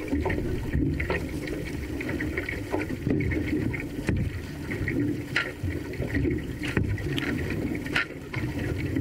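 Water rushing along the hull of an outrigger canoe under way, with the splash of paddle blades going in about every second or so.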